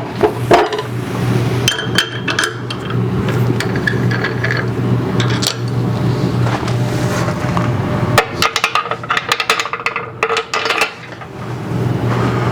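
Metal lathe chuck and tools being handled: ringing metallic clinks and knocks, with a dense run of clattering about eight seconds in, over a steady low motor hum.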